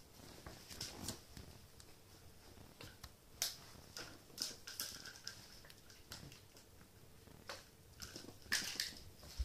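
Scattered light taps, scuffs and rustles of two small kittens pouncing and scrambling on a wooden floor and a sheet as they bat at a wand toy, with the sharpest taps near the end.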